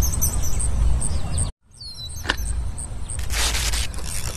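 Outdoor woodland ambience: a steady low rumble with small high bird chirps, cut off abruptly partway through, then resuming with a single tick and a short burst of hiss near the end.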